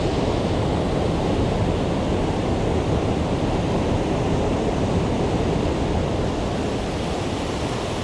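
Waterfall and river cascades rushing steadily in a deep, even wash of sound, the stream running high and heavy after days of rain.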